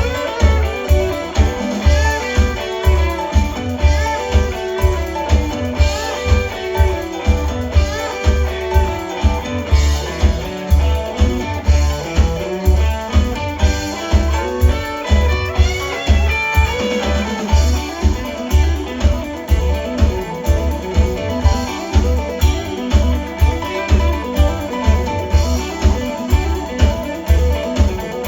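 A live rock band plays an instrumental break, a guitar line over a steady kick-drum beat of about two beats a second. The guitar notes bend in pitch around the middle.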